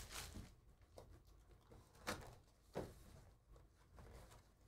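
Faint handling of a cardboard trading-card hobby box as its lid is opened: a few soft taps and scrapes, the clearest about two seconds and near three seconds in.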